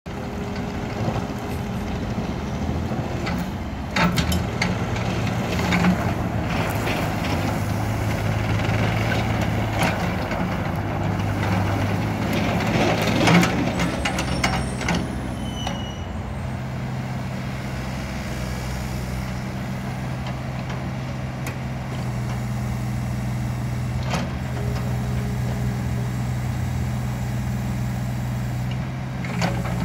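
Takeuchi TB235R mini excavator's engine running under hydraulic load as the boom, bucket and blade are worked, louder and rougher in the middle, then settling to a steadier run. Sharp metal clanks come through now and then.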